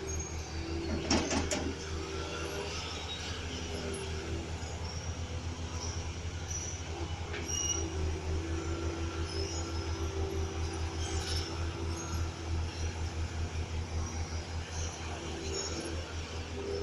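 Heavy diesel crawler earthmover running with a fast, steady low engine pulse and a whining tone above it, with a metallic clank about a second in.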